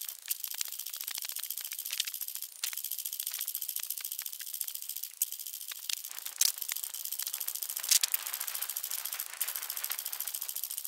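Handling noise from a camera carried by a runner: a fast, even rattle and rustle that pulses with the running strides, over a steady high hiss.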